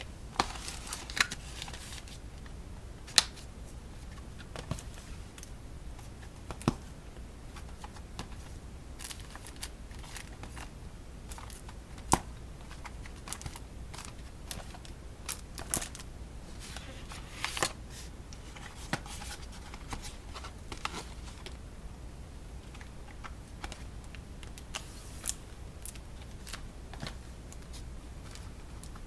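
Boxed decks of playing cards being handled and set down: scattered light taps and clicks of the cardboard boxes, with a few brief rustles.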